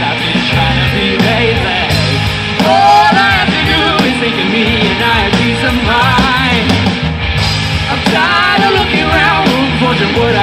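A live band playing a rock song: drums, bass, guitars and keyboard, with a voice singing in short phrases over them.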